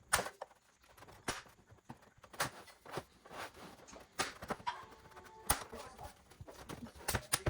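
Scattered sharp clicks and knocks, a few each second at uneven spacing: hard objects being handled and set down.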